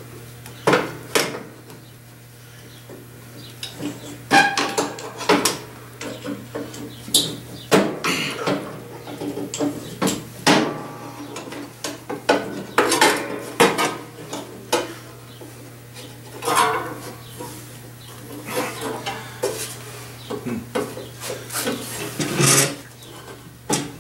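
Irregular metallic clinks and clanks of hand tools and metal parts as a pulley and washer are fitted and bolted into a riding lawn mower, over a steady low hum.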